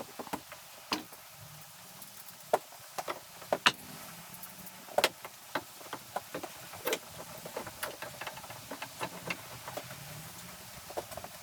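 Irregular light clicks and knocks of wooden trim pieces and hand tools being handled and fitted, with a few sharper knocks spread through.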